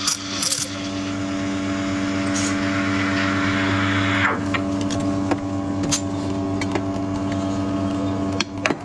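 An espresso machine's steam wand steaming milk in a stainless steel pitcher. For about the first four seconds it gives a loud hiss as air is drawn into the milk, then settles to a quieter steady rush as the milk is heated, over a steady hum. The steam cuts off shortly before the end, followed by a couple of clicks.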